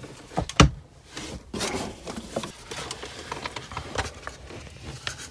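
Scattered knocks, taps and rubbing from handling, with one sharp knock about half a second in.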